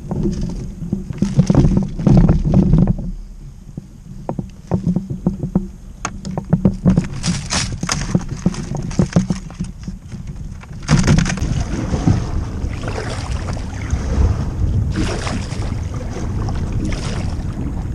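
Kayak on the move over water: irregular knocks and splashes for the first ten seconds or so, then a steady rush of wind and water from about eleven seconds in.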